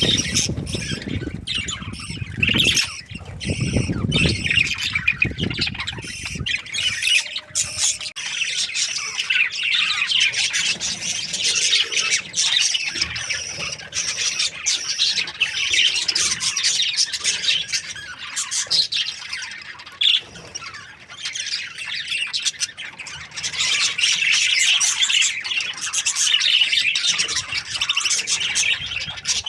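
A flock of budgerigars in breeding season, chattering and chirping in a dense, continuous warble. A low rumble sits under the chatter for the first few seconds.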